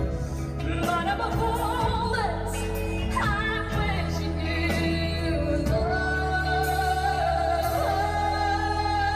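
A female solo singer singing a slow ballad over a band or orchestral accompaniment, gliding between notes and then holding long sustained notes in the second half.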